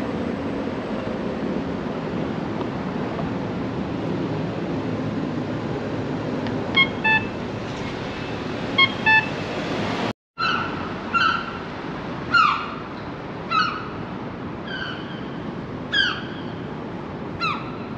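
Steady city traffic noise, with two quick pairs of short beeps in the first half. After a cut, a series of short falling chirps comes about once a second over the hum.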